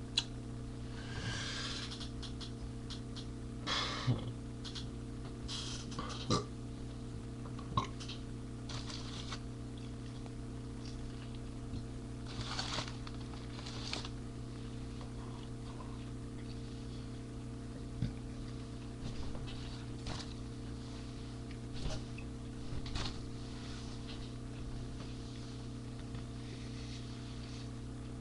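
A steady low hum with scattered small clicks and brief rustling noises.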